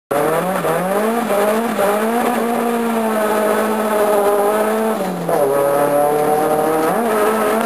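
Nissan Silvia S14's turbocharged four-cylinder engine heard from inside the cabin while drifting. The revs rise and fall, drop low about five seconds in, and climb again near seven seconds.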